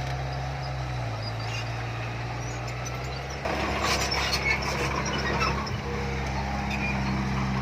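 Heavy earthmoving machinery's diesel engine running with a steady low note. About halfway through it gets louder, with rattling and clanking as the machine works.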